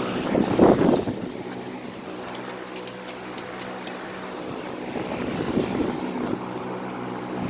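A steady low mechanical hum made of several even tones. In the first second there is a loud rumbling burst, like wind on the microphone.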